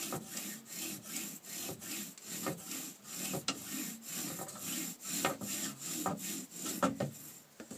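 Bow drill running: the wooden spindle grinds into the fireboard with steady back-and-forth bow strokes, about two a second. The bearing block on top of the spindle is ice. The fireboard is already smoking, a sign that the friction is building toward an ember.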